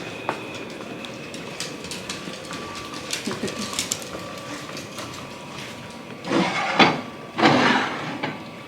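Household handling noises: scattered light clicks, then two brief, louder rustling or scraping bursts near the end.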